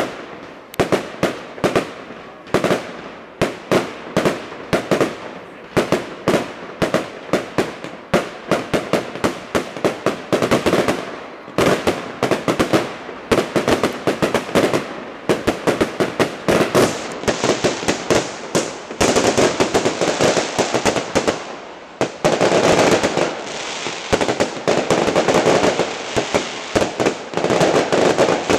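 Fireworks display: a fast run of aerial shell and rocket bangs, several a second. Past the middle the bangs thicken into a dense, continuous crackling barrage.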